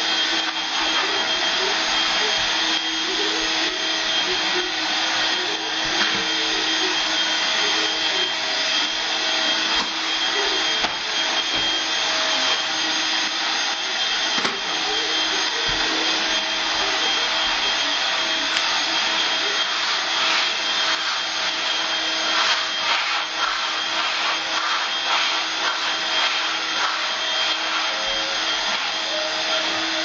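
Corded vacuum cleaner running steadily as it is pushed back and forth across a wood floor. Its motor holds a constant whine over the rush of air.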